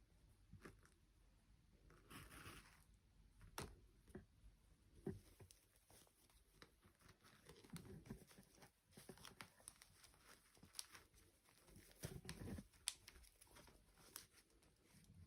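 Near silence with faint, scattered clicks and short rustles of small objects being handled.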